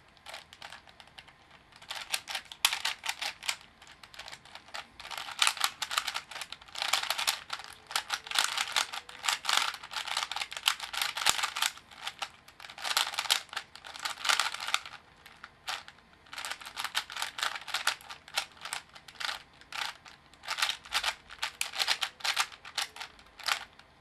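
Plastic layers of a black cube4you DIY 3x3 speedcube with Cubesmith stickers clacking as they are turned fast by hand, in quick bursts of turns with short pauses between, stopping near the end.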